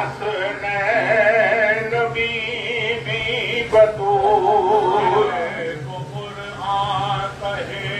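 A man singing devotional verses unaccompanied in a slow melody, holding long wavering, ornamented notes in four phrases with short breaths between them, over a steady low hum.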